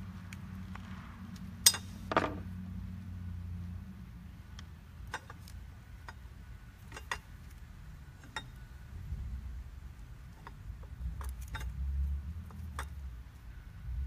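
Scattered light metallic clicks and clinks of a screwdriver and wire terminals as lead wires are fastened onto a floor sander's replacement switch, the sharpest pair about two seconds in, over a low steady hum.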